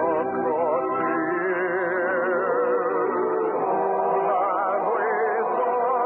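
Radio orchestra playing operetta music: sustained melody lines with vibrato over a fuller accompaniment, in the narrow, muffled sound of an old radio transcription.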